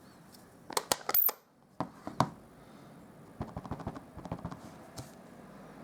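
Small sharp clicks and taps of rubber stamp and ink pad being handled: a few separate clicks in the first couple of seconds, then a run of light quick taps, as of a stamp being dabbed onto an ink pad.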